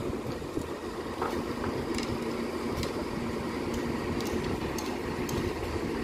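Steady low diesel rumble of a concrete pump truck and a ready-mix mixer truck running, with a few light clicks scattered through it.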